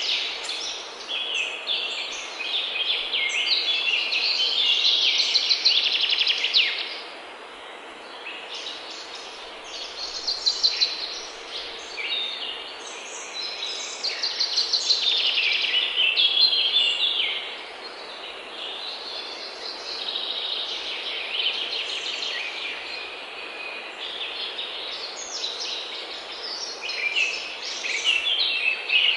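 Songbirds singing: rapid, high trilled phrases one after another, with a short lull a quarter of the way in.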